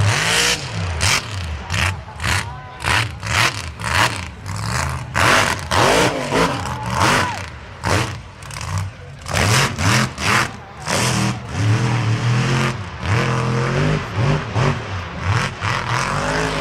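Mud truck engine revving hard in repeated surges, its pitch rising and falling with the throttle.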